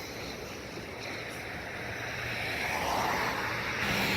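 Livestock transport truck passing on the road: steady engine and tyre noise that grows louder through the second half.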